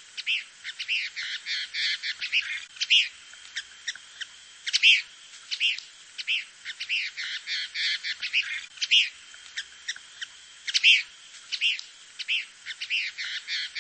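Birds chirping: a dense run of short chirps, several a second, with a louder call standing out every couple of seconds.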